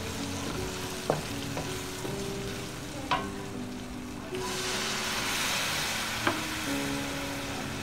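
Wooden spoon stirring and scraping onions, tomatoes and spices frying in oil in an aluminium wok, with a few sharp knocks of the spoon against the pan. About four seconds in, water poured into the hot oil makes the sizzle jump louder and hissier as the masala starts to cook in the water.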